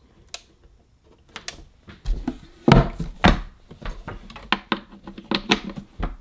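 Knocks, clicks and bumps from a portable suitcase record player's case being handled and tipped up, with two heavier thuds near the middle.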